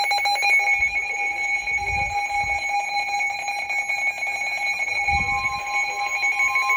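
NOAA weather radio alert alarm sounding for a severe thunderstorm warning: a fast-pulsing electronic beep, with a second steady tone joining about five seconds in.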